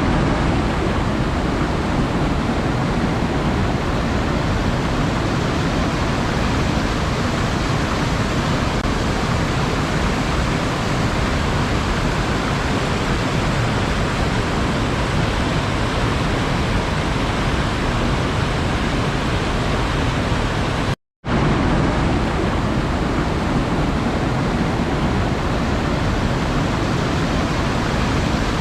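Steady, even rush of water, with no distinct wave surges; it cuts out to silence for a split second about three quarters of the way through, then carries on unchanged.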